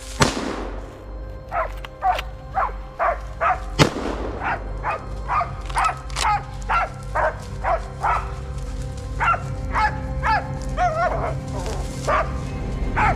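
Hunting laikas barking in a steady series of short barks, about two a second, while holding a moose at bay. A sharp crack sounds about four seconds in.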